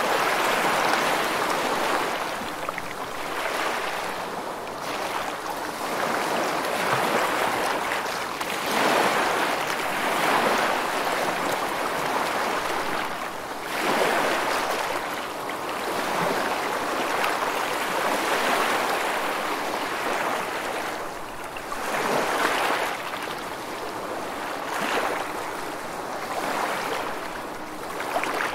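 Sea waves washing and breaking, the rushing water swelling and ebbing every few seconds.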